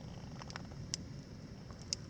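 Wood campfire burning with a low steady rumble and a few sharp crackles, the loudest about a second in and near the end.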